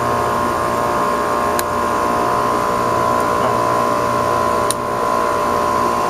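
Goodman heat pump outdoor unit running, its compressor and condenser fan giving a steady hum with a whine of several steady tones. Two light clicks, about one and a half seconds in and again near the five-second mark.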